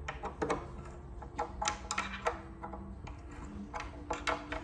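Light, irregular clicks and taps of metal bed hardware and a hand tool as a bolt with its washer is tightened into the bed rail.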